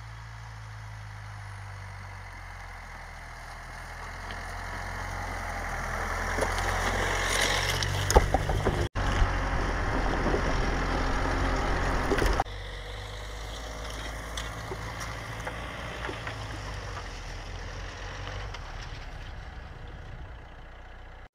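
Dacia Duster SUV driving slowly along a snowy track, its engine running steadily with tyre noise through fresh snow, growing louder as it comes closer. About twelve seconds in, the sound drops suddenly to a quieter, steady running.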